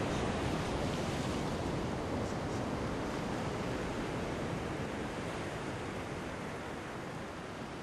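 Steady rushing of sea waves, slowly fading out.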